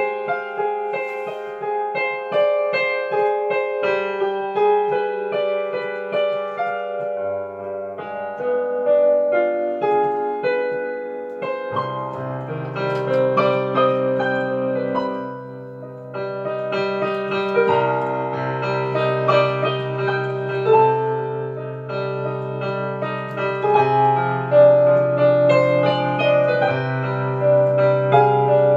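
Solo piano played with both hands: a flowing melody over chords. A little before the middle, a fuller, louder left-hand bass comes in and the playing thickens.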